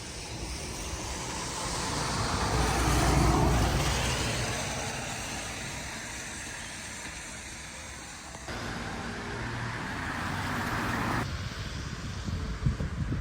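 Road traffic: a car passes, its tyre and engine noise building to a peak about three seconds in and then fading, followed by steady traffic noise.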